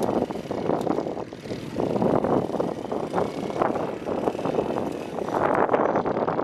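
Small motorcycle engine running as the bike rides slowly across loose sand, its sound rising and falling in level.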